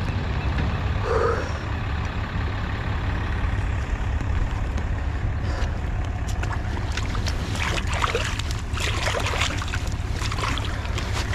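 Wind buffeting the microphone with a steady low rumble. In the second half, feet splash as they wade through shallow water.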